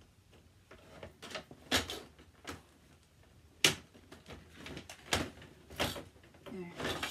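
Plastic dollhouse railings and floor panels being handled and pressed together: an irregular series of sharp plastic clicks and knocks, the loudest about halfway through.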